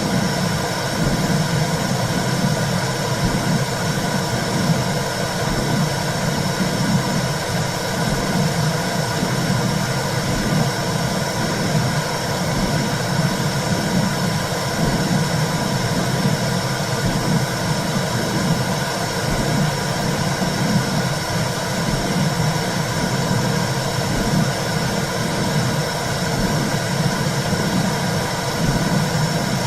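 Womb sound for soothing a baby: a steady low whooshing noise with a regular, rhythmic pulse.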